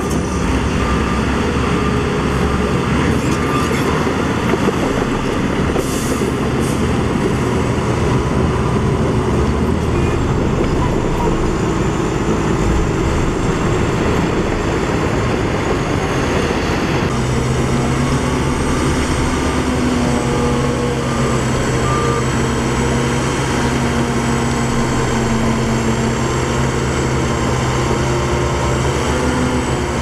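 Heavy diesel engines of a dump truck and a crawler bulldozer running steadily while the truck's bed is raised to tip soil. About halfway through, the sound changes to a steadier engine hum with a clear, even pitch.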